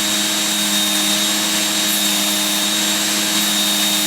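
Small electric knife sharpening machine running steadily, its motor giving a constant whine over the hiss of the spinning abrasive as a knife gets a few finishing passes.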